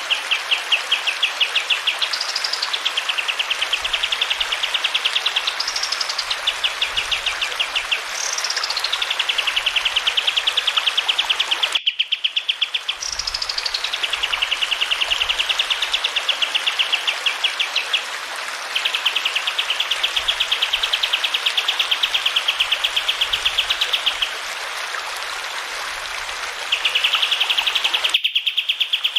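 Kapas tembak songbird singing long, rapid rolling trills, each starting with a quick rising-and-falling note, over the steady sound of running water. The sound drops out briefly twice: about twelve seconds in and near the end.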